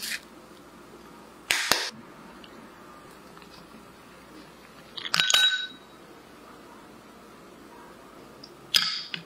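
Utensils scraping and clinking against a glass mixing bowl in four short, separate bursts. The loudest burst comes about five seconds in and has a brief glassy ring.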